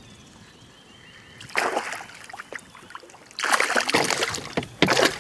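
Hooked pickerel thrashing and splashing at the water's surface in three bursts of splashing: about a second and a half in, from about three and a half seconds, and again near the end.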